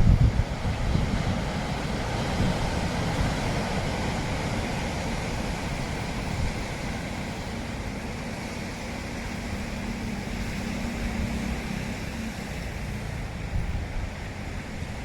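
Wind buffeting the microphone, with gusty low thumps strongest just after the start, over a steady rushing background.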